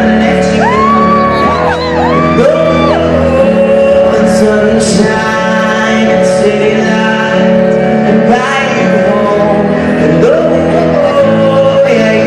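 A male voice singing long, wavering notes live over sustained instrumental accompaniment, amplified through a PA. About halfway through there is a brief high shout from the audience.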